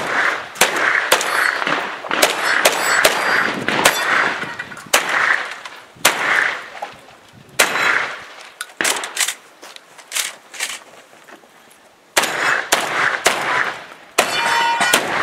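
Rapid shotgun shots, about two a second, each followed by a metallic clang as steel targets are hit. The shots thin out to a few for several seconds midway, then resume in a fast string near the end.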